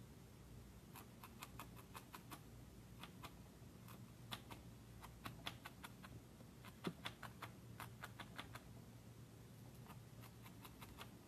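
Felting needle stabbing white wool into felt on a foam pad: faint, quick, irregular clicks in short runs of several a second, over a low steady hum.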